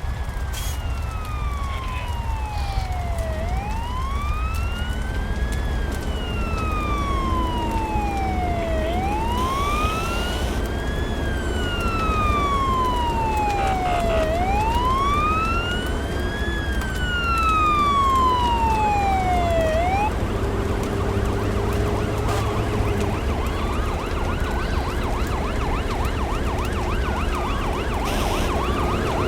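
Fire engine siren wailing slowly up and down, each rise and fall taking about five and a half seconds, over a steady low rumble. The wail stops about 20 seconds in, and a fainter rising siren comes in near the end.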